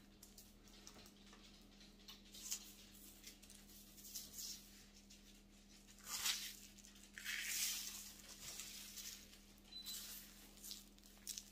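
Hands patting and rubbing a dry spice rub into a raw pork butt roast: faint, soft brushing and squishing sounds now and then over a steady low hum.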